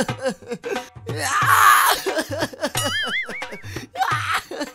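Background music with a steady beat and a voice over it. About a second and a half in comes a short noisy burst, and about three seconds in a brief warbling, whistle-like tone.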